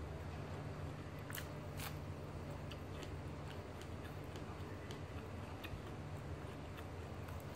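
Scattered soft clicks and crackles of flaky roti prata being torn apart by hand and chewed, two sharper clicks about a second and a half in, over a steady low hum.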